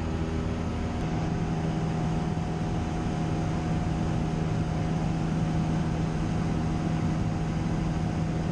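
Cessna 172's piston engine and propeller running steadily in cruise flight, an even hum with a few steady tones.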